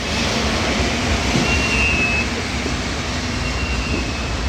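Ride-on floor scrubber machines running with a steady mechanical hum and low rumble, and a faint high whine that comes and goes.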